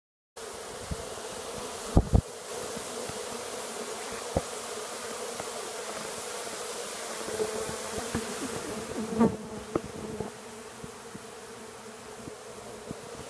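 Steady buzzing hum of a large honeybee colony exposed in an opened ceiling, many bees flying. Two sharp knocks come about two seconds in, with a few lighter taps later.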